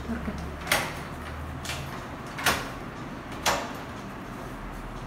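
Three sharp clacks from the front door as its handle and lock are worked: the first less than a second in, the other two about a second apart near the middle.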